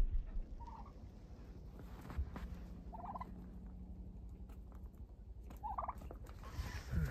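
Farm poultry calling three times, each a short pitched call, with the last one falling in pitch.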